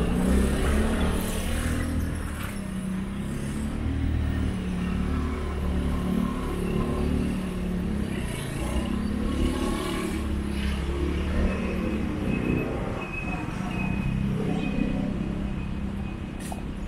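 Street traffic: motor vehicles running and passing with a continuous low engine rumble that swells and fades. A thin high steady tone joins in for a few seconds near the end.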